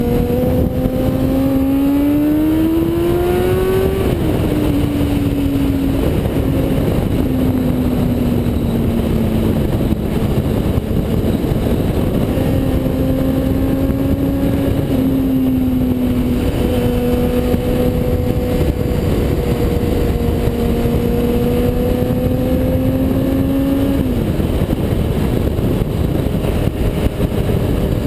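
2005 Honda CBR600F4i's inline-four engine accelerating, its pitch climbing and then dropping sharply at an upshift about four seconds in. It then cruises at a fairly steady note with small swells of throttle, and the pitch falls again late on as the throttle is rolled off. Heavy wind noise rushes over the helmet-mounted microphone throughout.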